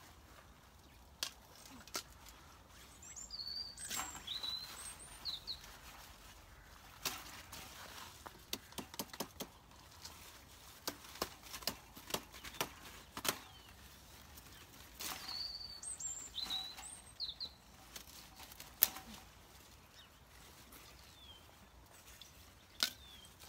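A small bird chirps in two short bursts of song, amid repeated sharp clicks, snaps and rustles of pumpkin vines and leaves being handled and cut during harvesting.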